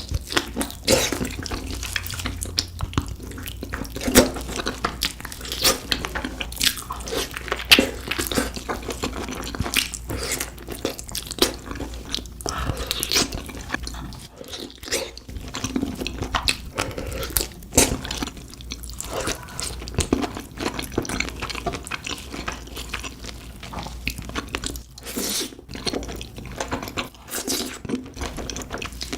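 Close-miked wet chewing and lip-smacking while eating spicy beef feet, a dense irregular run of sticky clicks and smacks.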